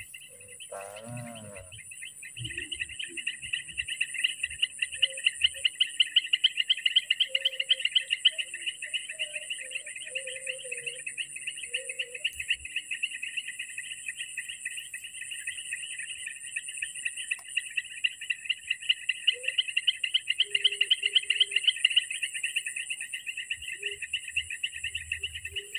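Insects trilling in a chorus, a very fast pulsing buzz that swells and eases, with a steady higher-pitched insect hiss above it.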